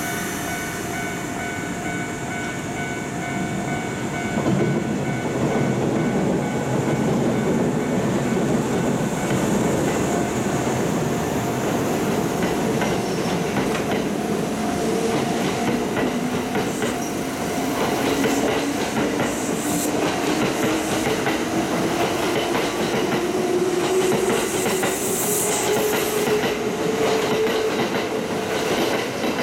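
Kintetsu electric commuter train pulling out of a station platform and gathering speed, its wheels clacking over the rail joints. A tone rises steadily in pitch through the second half as the train accelerates away.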